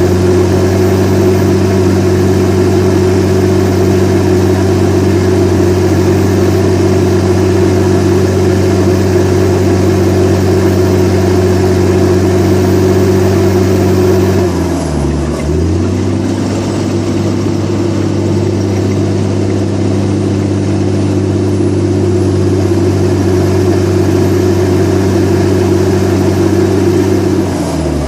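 Komatsu D61EX crawler dozer's diesel engine running loud and steady at high revs. About halfway through the revs sag briefly and come back up, and they dip once more near the end.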